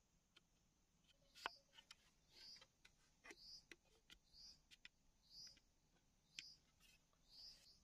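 Faint sharp clicks and small knocks of a knife cutting into a green bamboo tube, the loudest about one and a half seconds in. Behind them a bird repeats a short rising call about once a second.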